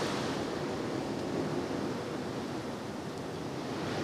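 Steady, even background hiss of room tone, with no other distinct sound.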